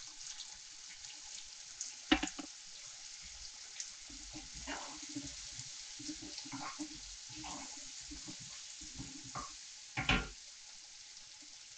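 Broad beans and onions sizzling gently in oil in a non-stick frying pan while a wooden spatula stirs them, scraping over the pan in a run of strokes, with a sharp knock about two seconds in and another near the end.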